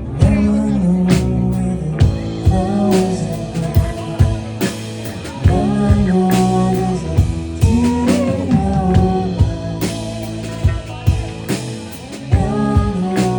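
Band playing dream-pop rock music: drum kit, guitar and bass, with singing.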